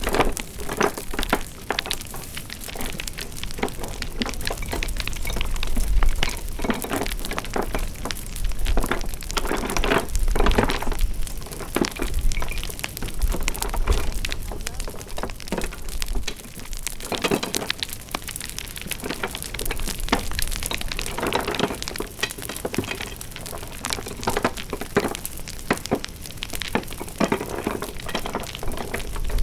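Wood fire crackling: a steady hiss thick with irregular snaps and pops, some louder than others.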